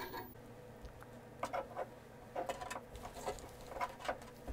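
Faint, irregular clicks and small scratching sounds of hand tools cutting and stripping thin electrical wires.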